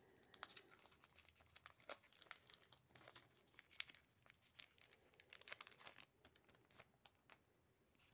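Faint crinkling and tearing of a foil Pokémon booster pack wrapper as it is handled and torn open, a scatter of small sharp crackles.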